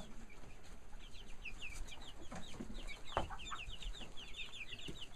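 Young chickens peeping steadily, many short high falling peeps a second. A single knock about three seconds in.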